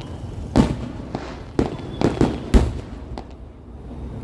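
Fireworks going off: five loud bangs in the first three seconds, the last the loudest, followed by a few small crackles and a brief lull near the end.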